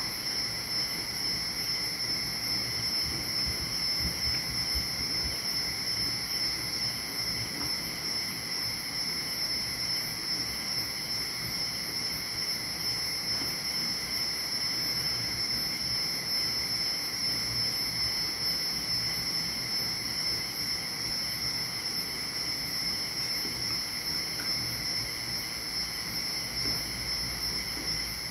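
A steady night-time chorus of insects such as crickets, several even high-pitched trills held unbroken, over a faint low rumble.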